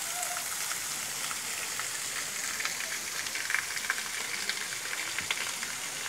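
Thin waterfall splashing down a rock face into a pool: a steady hiss of falling water with fine crackling splashes.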